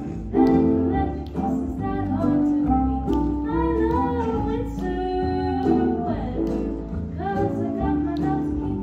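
Girls singing a song into handheld microphones over instrumental accompaniment with a steady bass line.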